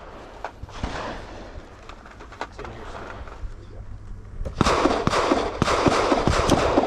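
A rapid string of gunshots, several a second, starting about four and a half seconds in and running on, with a few fainter single shots before it.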